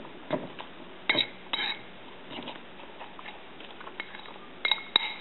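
Metal utensil stirring a wet egg-and-vegetable mixture in a ceramic bowl, clinking sharply against the bowl twice about a second in and twice more near the end.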